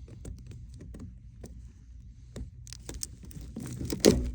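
Scattered clicks and scrapes of a dryer vent duct being handled and pulled to free a lint blockage stuck in the elbow, with a louder knock near the end, over a steady low rumble.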